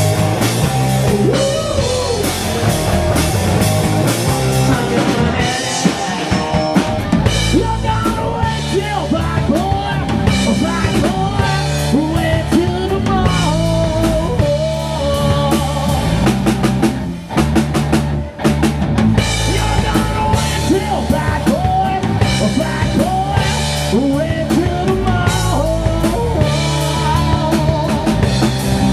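Rock band playing a song: drum kit, electric guitars and bass, with a man singing lead over a steady beat. The band drops out for an instant twice a little past the middle.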